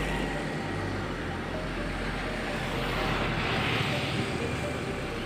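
A boat's engine running steadily: a low, even hum under a rushing noise.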